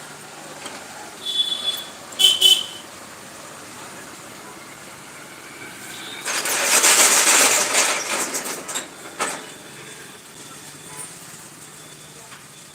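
Street traffic: two short, high vehicle-horn toots about a second and two seconds in, then a loud hissing rush lasting about two and a half seconds from around six seconds in, over a steady low hum.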